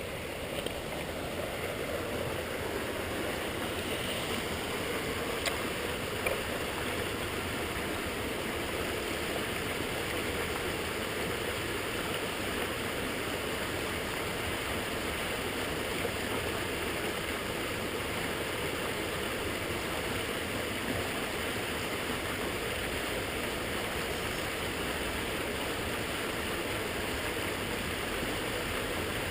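Steady, even rush of flowing water, with two faint knocks about five and six seconds in.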